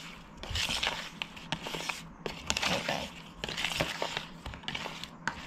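Wooden spatula stirring salted mackerel pieces in a plastic bowl: irregular wet scraping, with small knocks of the spatula and fish against the bowl.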